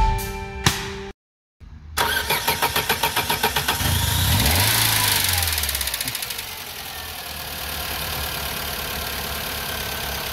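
Opel Vectra 1.6 petrol four-cylinder engine being cranked by its starter. It catches after about two seconds, revs up and falls back, then settles into a steady idle.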